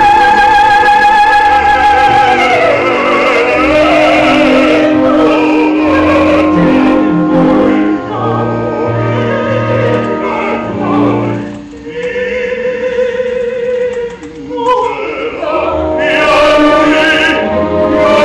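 Live opera singing with instrumental accompaniment: a soprano holds a long high note for the first couple of seconds, then the singing goes on, and a man's voice sings in the later part.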